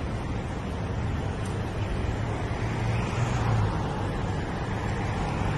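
Street traffic noise: a steady rumble of cars, with a low engine hum that swells about three seconds in.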